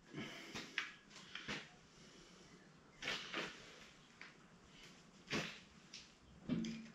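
Faint, scattered clicks and light knocks of small screws and handlebar switch-housing parts being handled, as a dropped screw is picked up off the floor.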